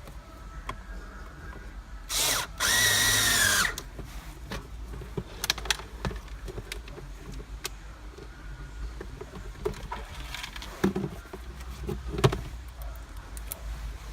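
Cordless power drill-driver run in two short bursts about two seconds in, its motor pitch rising and then falling, followed by scattered clicks and light knocks of parts and tools being handled.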